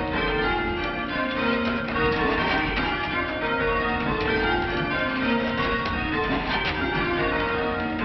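A ring of church bells being rung in changes, heard from the ringing chamber below. The bells strike one after another in a steady, unbroken succession, each ringing on into the next.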